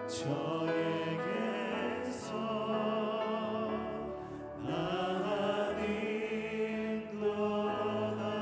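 Worship team of men and women singing a Korean worship song together in harmony, some voices with a clear vibrato.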